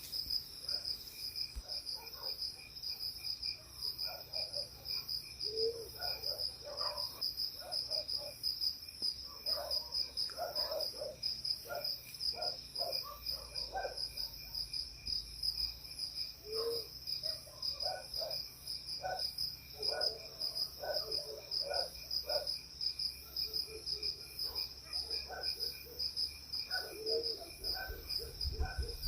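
Crickets and other night insects chirring steadily in a fast, pulsing chorus. Many short, irregular lower-pitched calls from another animal are scattered through it.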